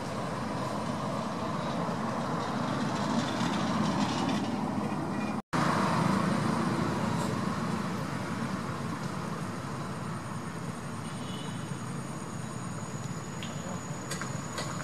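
Steady outdoor background noise, an even rumbling hiss with no distinct events, cut by a sudden brief dropout about five and a half seconds in.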